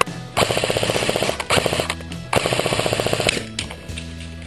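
Airsoft electric rifle of the ACR type firing on full auto: three bursts of rapid, evenly spaced rattling shots, each about a second long, one after another.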